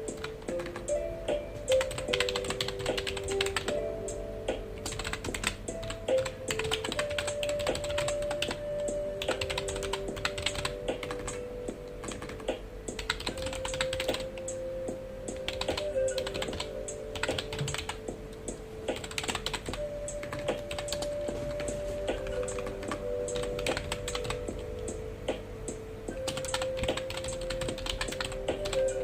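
Continuous typing on a computer keyboard: dense, irregular key clicks with brief pauses, over soft background music of slow held notes.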